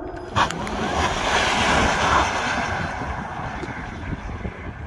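Rivian R1T electric pickup passing close by at speed: a rush of tyre and air noise that starts abruptly about half a second in, peaks, and fades over the next couple of seconds as the truck drives away, with wind buffeting the microphone.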